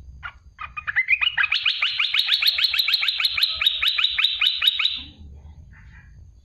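Olive-winged bulbul giving a rapid trilled burst: about seven sharp down-slurred notes a second for roughly four seconds, building up over the first second and cutting off abruptly about five seconds in.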